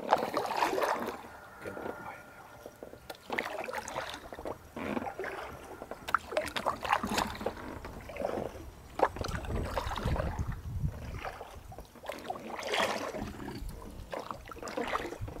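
Water splashing, dripping and sloshing from a kayak paddle in uneven strokes, with a low rumble on the microphone about nine seconds in.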